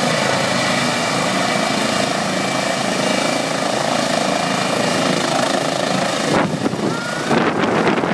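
Eurocopter EC135 helicopter's twin turbine engines and main rotor running on the ground, a steady, loud sound with a high whine. About six seconds in, rotor downwash starts buffeting the unshielded microphone with gusty wind noise.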